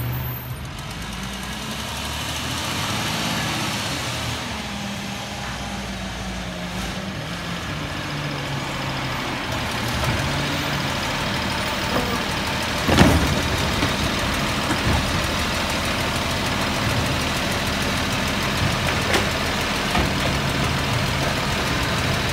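Peterbilt 320 garbage truck's diesel engine running, its pitch rising and falling over the first several seconds, then idling steadily. A single sharp bang stands out about 13 seconds in.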